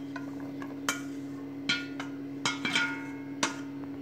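Wooden spatula knocking against a steel colander as parboiled potato fingers are scraped out into a bowl: about five sharp knocks, each with a brief metallic ring, over a steady low hum.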